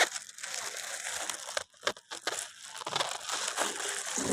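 Irregular crinkling, rustling noise broken by short pauses and a few sharp clicks.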